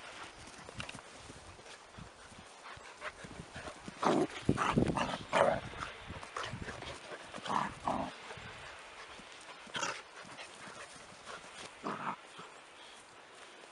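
Two puppies play-fighting, giving short yaps and growls in scattered bursts, the loudest run about four to five and a half seconds in and smaller ones near the end.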